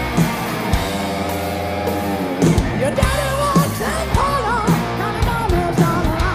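Live hard rock band with electric guitars, bass and drums. A chord rings for about two seconds, then the full band comes back in and a male lead vocal enters with the first sung line of the verse.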